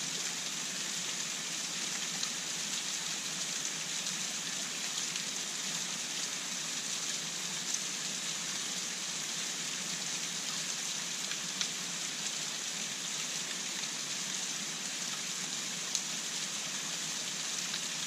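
A thin trickle of water falling down an earth bank and splattering onto stones: a steady patter with a few sharper drip ticks.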